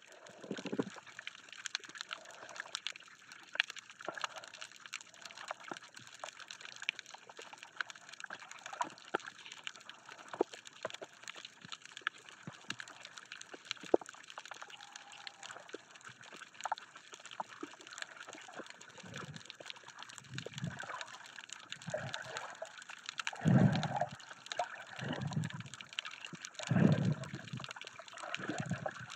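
Water heard through an underwater camera while snorkeling over a reef: a steady hiss crackling with many tiny clicks. From about two-thirds of the way in come low sloshing surges every second or so, water moving around the camera as the swimmer moves.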